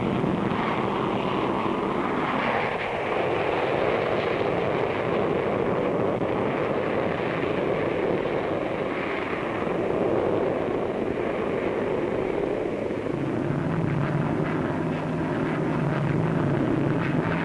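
Jet noise of the Handley Page Victor bomber's four Armstrong Siddeley Sapphire turbojets as it takes off and climbs away: a continuous rushing jet sound that sweeps down in pitch about two to three seconds in as it passes. A low steady tone joins it near the end.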